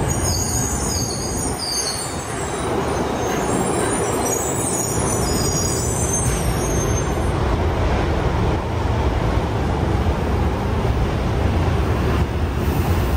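Yokohama Municipal Subway Blue Line train pulling into the station and slowing to a stop: a steady low rumble, with high wavering squeals over roughly the first half that then die away.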